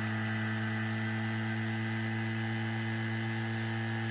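Refrigeration vacuum pump's electric motor running steadily in a short test run with nothing connected, a steady even-pitched hum; it sounds healthy, with its oil still cold.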